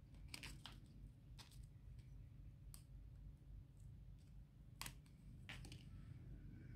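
Near silence with a low room hum and a few faint, sharp clicks and ticks from hands handling sticker sheets and paper planner pages. The loudest click comes a little before five seconds in.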